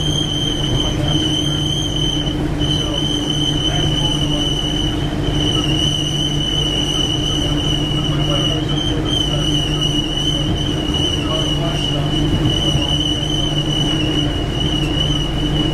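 1967 St. Louis Car Silverliner III electric railcar running, heard from its cab: a steady low hum and rumble, with a high steady whine above it that breaks off briefly a few times in the first few seconds.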